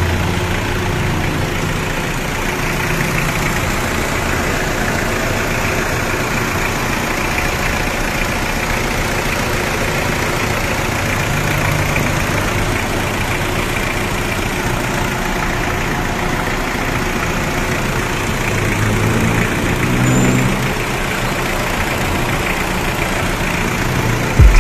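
Car engine idling close up under the open hood during an air-conditioning refrigerant recharge, a steady rushing running sound over a low hum. The engine note rises briefly near the end.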